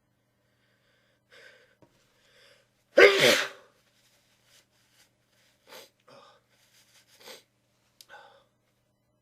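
A person sneezes once, loudly, into a tissue: faint breaths drawing in, then a single voiced 'achoo' that falls in pitch, about three seconds in. Several short, quieter sounds follow, spaced about half a second to a second apart.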